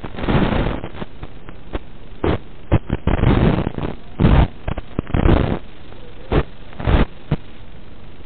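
Static hiss from an analog FPV video receiver's audio channel, broken by repeated short, louder bursts of noise as the radio signal breaks up.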